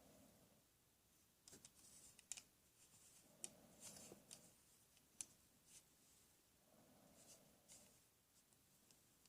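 Near silence with faint scattered clicks and light taps, bunched in the first half.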